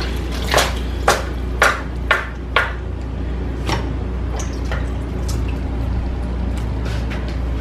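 Fresh herbs rinsed and shaken off at a stainless kitchen sink: about five sharp taps and splashes in the first three seconds, then a few fainter ones, over a steady low hum.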